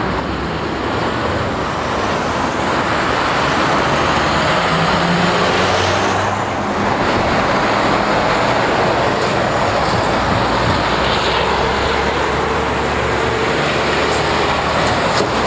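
Road traffic passing close by: diesel lorries and cars, with engine sound and tyre noise on the road.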